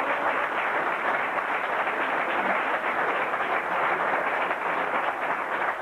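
Theatre audience applauding: a dense, even clatter of many hands clapping.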